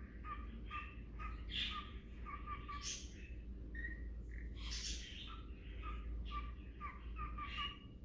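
Lineolated parakeet calling: a run of short, repeated chirps, about two a second, broken by a few louder, noisier calls.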